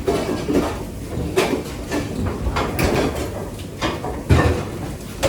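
Restaurant kitchen work noise: irregular knocks and clatters over a steady background hum. The loudest is a heavy thump about four seconds in.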